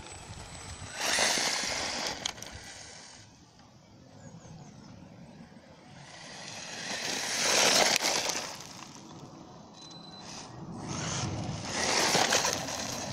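Electric short course RC truck (Maverick Strada) driving over loose gravel and concrete: surges of tyre scrabble and gravel spray that rise and fall, about three times, loudest about eight seconds in.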